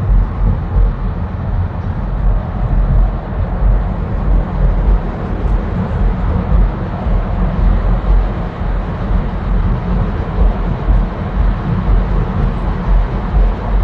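Steady road and engine rumble of a car driving, heard from inside the cabin, with a deep low rumble and no breaks.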